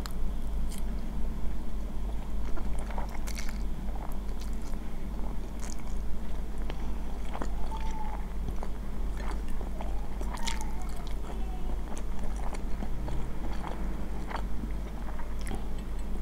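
Close-miked chewing and slurping of saucy instant noodles, with wet mouth clicks and the occasional click and scrape of a metal fork on a ceramic plate.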